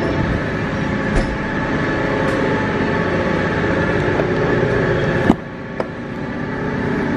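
Pickup truck engine idling steadily. A sharp click about five seconds in, after which the sound is quieter.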